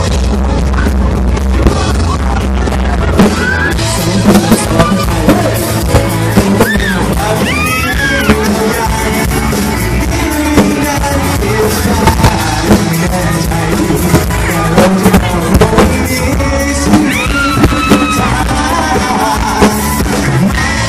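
A live rock band plays, with acoustic guitars, keyboard and drum kit, while two men sing into microphones. Sharp drum hits come through from about three seconds in.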